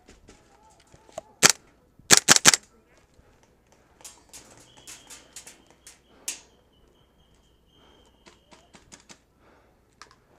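Gas blowback airsoft guns firing: one loud shot about a second and a half in, then a quick string of about four shots half a second later, followed by fainter scattered shots.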